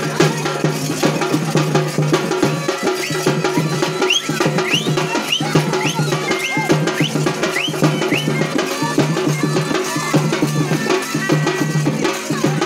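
Fast, dense drumming on hand-played folk drums for street dancing, with a steady low hum underneath. About four seconds in comes a run of short high rising-and-falling chirps that lasts a few seconds.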